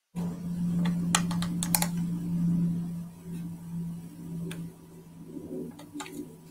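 Light clicks and taps from small paper craft embellishments being handled and set down on a worktable, a quick cluster about a second in and a few more near the end, over a steady low hum.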